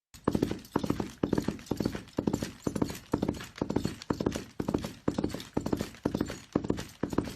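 Horse galloping: hoofbeats in quick clusters of several strikes, close to two strides a second, in an even, unbroken rhythm.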